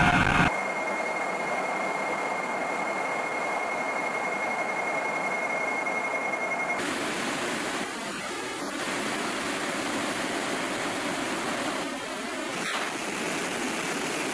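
Steady rushing noise of an Il-76 jet transport in flight, heard from inside the aircraft, with a high steady whine over the first half. The sound shifts abruptly a few times where the footage is cut.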